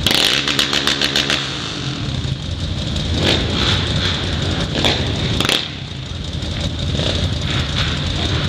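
Several quad bike (ATV) engines idling in a queue. A nearby engine chugs in a rapid string of pulses for about the first second and a half. A few sharp short knocks come through in the middle.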